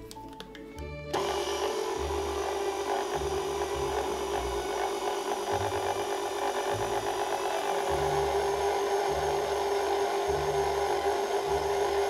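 Electric stand mixer switching on about a second in and running steadily with its flat beater, working butter, powdered sugar and flour into a crumbly dough in a glass bowl; the motor gives a steady tone. Background music with a beat plays underneath.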